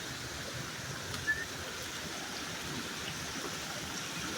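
Steady rush of a flowing stream, with a brief high chirp about a second in.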